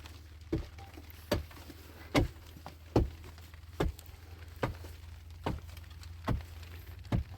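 Steady, rhythmic knocking: nine sharp blows, about one every 0.8 seconds, like a tool striking over and over, with a low steady hum underneath.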